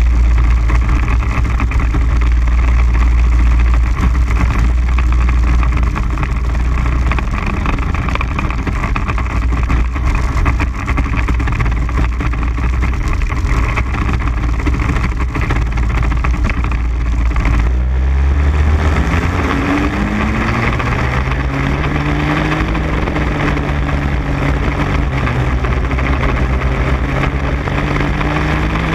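Raket 120 two-stroke kart engine running on track, recorded onboard: its pitch holds steady for the first half, then rises and falls repeatedly in the second half as the kart lifts and accelerates through corners.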